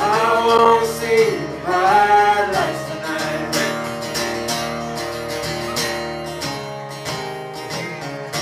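Live folk band playing: strummed acoustic guitar with singing, the voice strongest in two phrases over the first three seconds.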